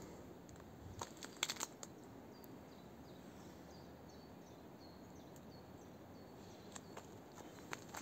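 Footsteps crunching and snapping dry twigs and bark on and around felled logs, a cluster of sharp cracks about a second in and a few more near the end. Between them, a string of faint, short, high bird chirps over a quiet forest background.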